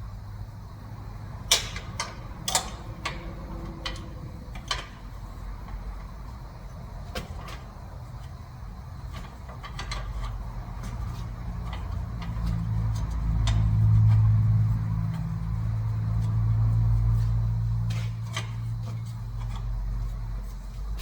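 A motor vehicle's engine running with a low, steady hum that grows louder about halfway through, then eases off near the end, with a few sharp clicks and knocks in the first few seconds.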